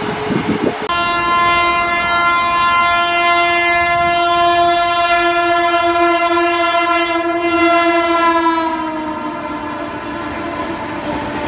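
WAP-7 electric locomotive sounding one long horn blast as it comes in at speed, its pitch dropping slightly as it passes about three-quarters of the way through, over the rumble of the train. Just before the horn starts there is a brief clatter of another train's coaches.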